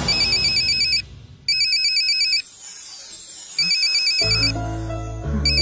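Mobile phone ringtone: an electronic trilling ring in bursts of about a second, four times. Background music with a steady bass line comes in about four seconds in.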